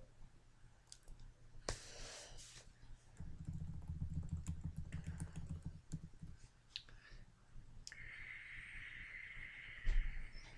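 Small clicks as a vape with a rebuildable Omega atomizer is handled, then, about eight seconds in, a steady hiss as a draw is taken from it, with a soft thump near the end.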